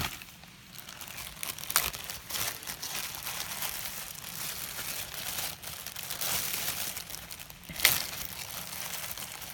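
Crinkling and rustling from hands handling a broken jawbreaker, with two sharp clicks, one about two seconds in and a louder one near the end.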